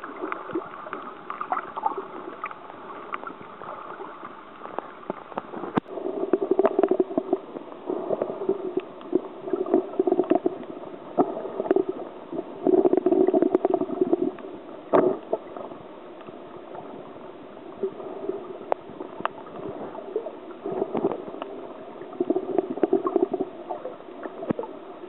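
Muffled underwater sound from a camera held beneath the surface while snorkelling: water gurgling and sloshing, with scattered sharp clicks and louder swells in the middle stretch.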